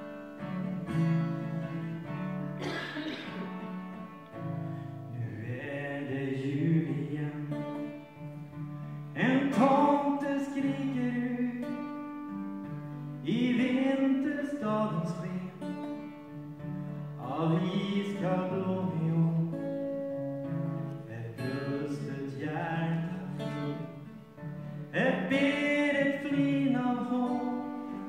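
Acoustic guitar playing a slow intro, with a new chord struck every few seconds.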